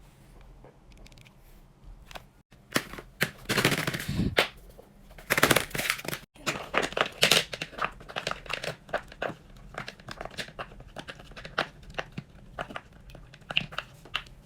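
Crinkly material crumpled and rustled by hand, with two louder bursts of crinkling a few seconds in, then many small clicks and rustles.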